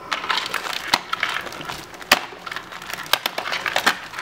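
Small doll accessories and their packaging being handled: rustling with a string of sharp clicks and taps, the sharpest about two seconds in.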